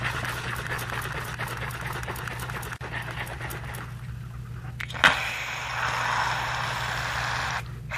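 Paper rustling and handling, then, about five seconds in, an aerosol can of shaving foam hissing for about two and a half seconds as foam is dispensed.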